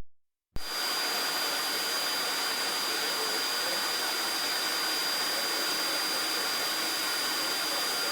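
Vacuum cleaner running steadily: an even rush of air with a constant high whine from the motor, beginning abruptly about half a second in.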